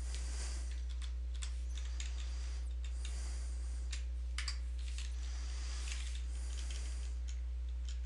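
Computer keyboard being typed on in scattered keystrokes and short runs, over a steady low electrical hum.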